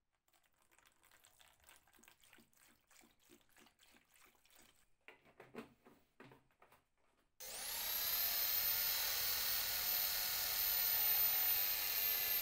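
Faint gurgles and splashes of liquid poured into a plastic tub of rusty nuts, bolts and small parts to soak them. About seven seconds in, an electric drill starts with a quickly rising whine and then runs steadily, boring into an aluminium part held in a vise.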